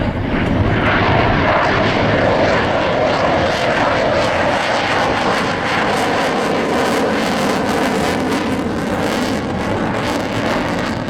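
Airplane engine noise, loud and steady, swelling about a second in and easing off near the end.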